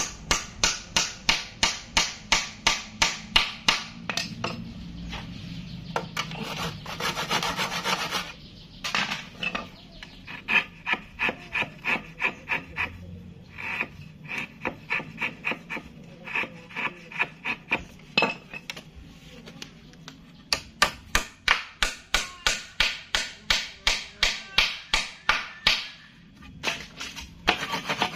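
Hand tool rubbing or rasping back and forth on hardwood, about three to four strokes a second in runs of several seconds with short pauses between.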